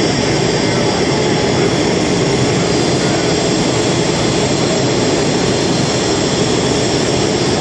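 Aircraft turbine engine running steadily and loud, a constant rush with a faint high whine.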